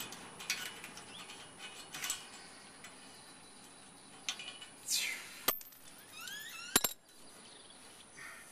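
Scattered light metallic clicks and clinks of hands working on a truck's steel side step and its mounting bracket, with one sharp click about seven seconds in. A bird calls briefly in the background twice, a falling whistle and then a few quick rising chirps.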